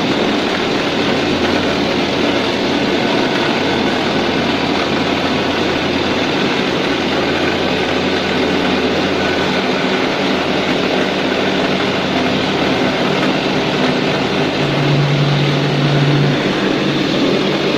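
ChengGong DaNiu 2.0 automatic wall plastering machine running, a steady mechanical drone with a low hum. About fifteen seconds in, a deeper hum swells for a second or two.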